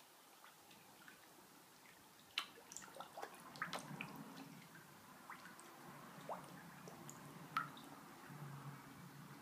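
Faint, scattered small water drips and plops at the pond surface, most of them between about two and four seconds in and a last one late on. A faint low hum sits under them from a few seconds in.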